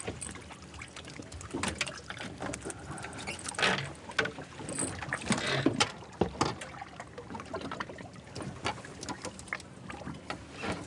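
Water lapping and slapping against the hull of a boat sitting on the sea, with irregular small knocks and a few louder splashes.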